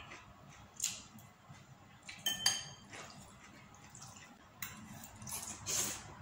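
Metal spoon and fork clinking against ceramic plates and a bowl while eating, a few separate clinks, the loudest about two and a half seconds in with a brief ring. Near the end, noodles are slurped.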